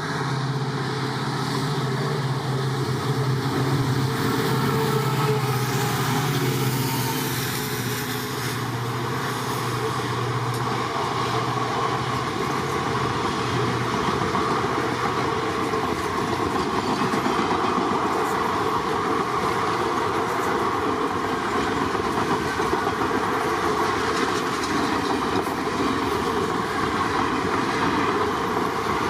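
Passenger train passing close by. A steady low locomotive hum for the first ten seconds or so, then the coaches rolling past with wheels clattering over the rail joints.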